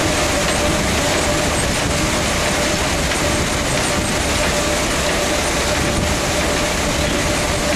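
Iron ore processing plant machinery running: a steady, loud mechanical rattle and rumble, likely ore moving through a motor-driven screen or feeder, with a thin steady whine over it.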